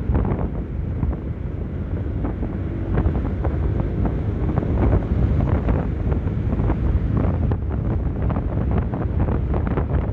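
Wind buffeting the microphone of a rider moving at speed on a Honda PCX 160 scooter, with a steady low rumble of engine and road noise under it.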